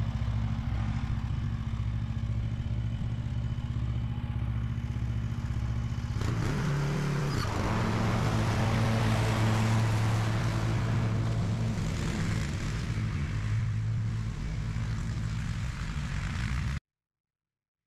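Husqvarna V554 stand-on mower's engine running steadily. It grows louder about a third of the way in as the mower comes past, then eases off, and the sound cuts off suddenly about a second before the end.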